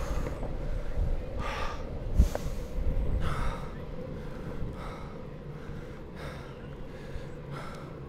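Longboard wheels rolling on an asphalt path, a steady low rumble, with the rider breathing hard in loud gasps about once a second. A single sharp knock comes about two seconds in.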